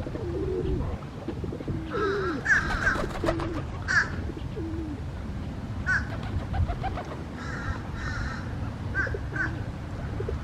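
Pigeons cooing with low, bending calls in the first half, while another bird gives short, higher calls, often in pairs, every second or two.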